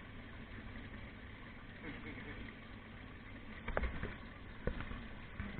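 High banker's water pump running steadily with a low, even hum, with a few short knocks in the second half.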